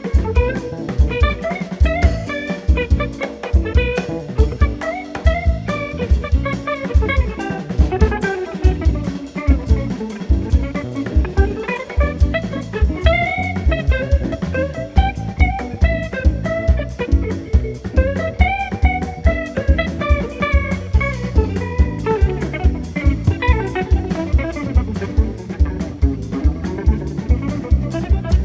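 Instrumental jazz-style band playing: electric guitar over double bass and a drum kit keeping a steady beat.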